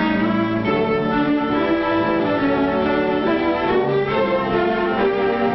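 Orchestral film score with strings carrying a melody in held notes over lower string harmony.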